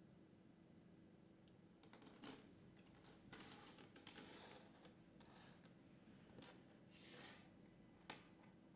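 Faint small clicks and brief rustles of handmade resin earrings with metal ear hooks being set down on and picked up from a table.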